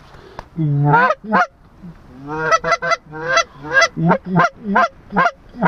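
Hand-blown goose call: one long honk about a second in, then a quick run of about a dozen short honks and clucks, roughly two a second.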